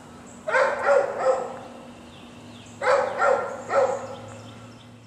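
Dog barking in two bursts of about three barks each, one shortly after the start and one past the middle.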